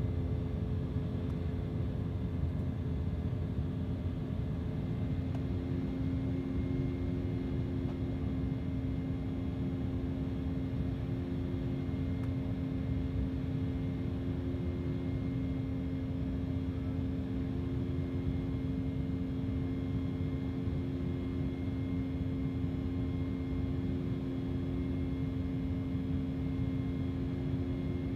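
Cabin noise inside an Embraer 190 climbing after takeoff: the steady drone of its General Electric CF34-10E turbofan engines over a low rumble. A second, slightly higher tone comes and goes from about five seconds in.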